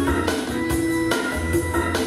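Instrumental pop backing track with a steady drum beat under sustained synth or guitar notes, with no singing over it.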